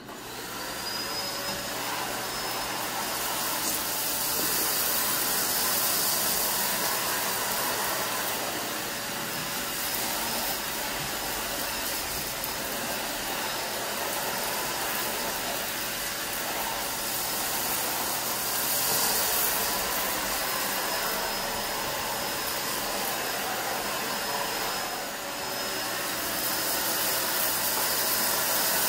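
Dyson DC21 canister vacuum starting up and running steadily, its hard floor tool pushed over a laminate floor sucking up rice and dark debris. A steady rush of air, swelling and easing as the tool moves, with a thin high motor whine over it.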